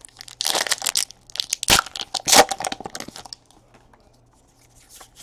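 Allen & Ginter baseball card pack wrapper torn open by hand, crinkling, with two sharp rips a little under and a little over two seconds in; the crinkling stops after about three seconds.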